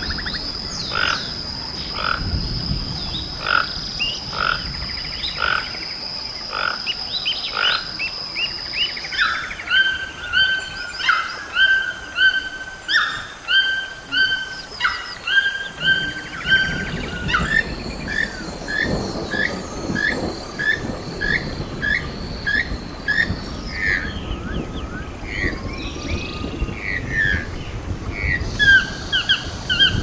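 Toucan calls from the Ramphastos group in a rainforest recording: toco, red-billed and Swainson's toucans, each giving a steady run of short repeated calls, about two a second at times. The calls change character a couple of times, and a thin steady high tone runs beneath them.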